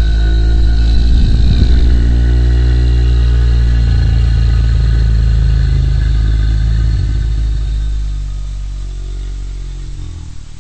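Horror sound effect: a loud, deep rumbling drone with several steady tones layered over it, easing off and fading out in the last couple of seconds.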